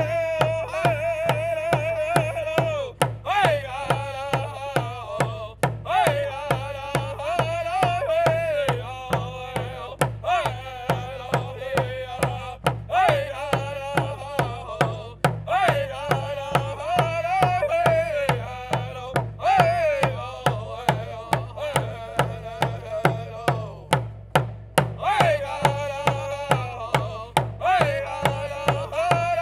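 Native American hand-drum song: men singing a chant together while beating frame hand drums in a steady beat, about two strikes a second, with short breaks between sung phrases.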